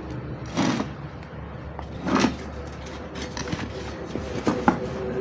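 Handling noises at a workbench: two short rustling, scraping sounds and then a few sharp clicks, over a steady low hum.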